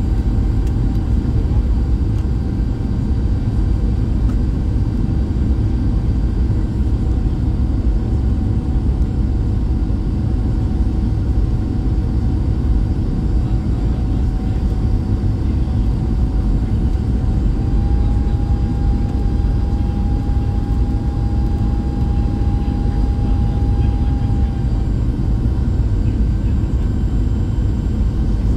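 Cabin noise inside a Boeing 737 MAX 8 descending to land: a steady, loud rush of engine and airflow noise. A thin whine runs through it, steps up slightly in pitch a little past the middle and fades near the end.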